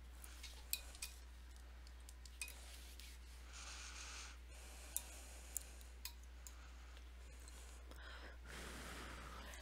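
Quiet room tone with a low steady hum, broken by a few faint sharp clicks and two soft breath-like hisses.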